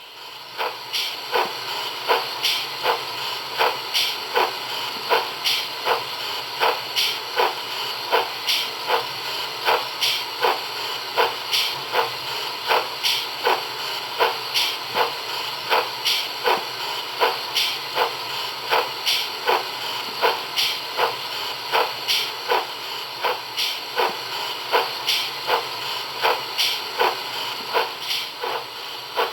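Sound decoder in a 7mm-scale GWR 45xx 2-6-2T steam tank locomotive model, playing a steady recorded steam exhaust beat through its small loudspeaker: even chuffs about two and a half a second over a constant hiss, settling into the rhythm about a second in.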